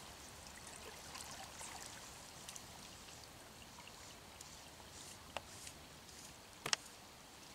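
Faint, steady flow of a small stream, with two sharp clicks near the end, the second the loudest.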